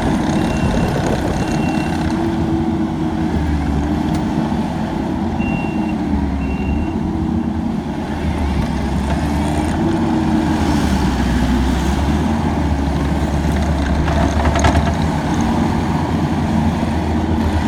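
Kubota SVL75-2 compact track loader's diesel engine running steadily, its pitch wavering up and down as it works. A backup alarm beeps in two short runs in the first seven seconds, and there is a single knock about three-quarters of the way through.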